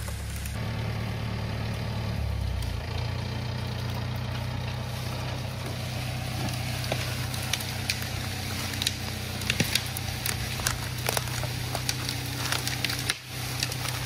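An engine idling steadily, with dry leaves and twigs crackling underfoot in the second half.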